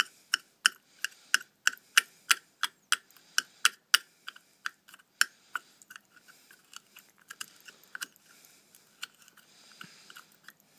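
A metal spoon clinking and scraping against a small stainless steel cup while stirring and pressing cotton wads with hand sanitizer to make fire starters. The clinks come evenly, about three a second, for the first few seconds, then turn sparser, irregular and softer.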